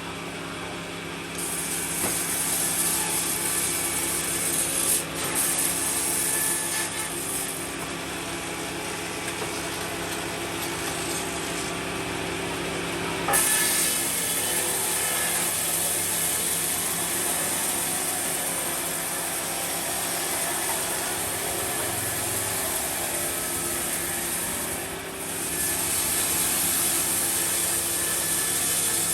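Sawmill saw cutting through wood over the steady hum of its running motor. The high cutting noise comes in about a second in, with a sharp knock and a short dip about halfway through and another dip near the end.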